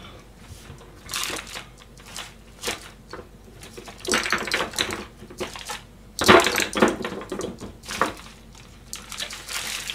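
Jars and small containers clinking and clattering as someone rummages through a kitchen cabinet, in irregular knocks and rattles with a louder clatter about six seconds in.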